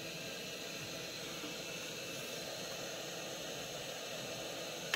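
Steady background hiss with faint steady tones in it and no distinct events, then a single short tap right at the end.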